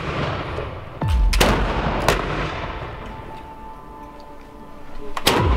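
Black-powder flintlock muskets and rifles firing single shots: a loud one about a second in, two more over the next second, and another near the end, each with a low booming tail. A faint steady tone runs underneath.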